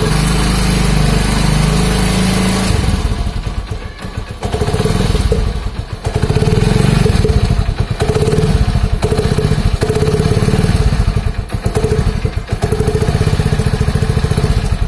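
Motorcycle engine running with a cut plastic bottle taped over the end of its silencer, rigged to make the exhaust sound like a Royal Enfield Bullet; the exhaust pulses come fast and even through the bottle. The engine eases off twice, around four and twelve seconds in, then picks up again.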